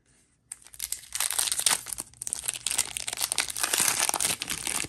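Foil wrapper of a Magic: The Gathering draft booster pack crinkling and tearing as it is pulled open by hand, starting about half a second in.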